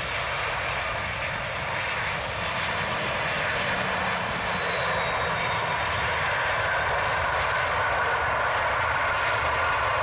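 Boeing 737-700's CFM56 jet engines running as the airliner touches down and rolls out on a rain-soaked runway, with water spray from the wheels; the engine noise grows steadily louder, with a faint falling whine in the first few seconds.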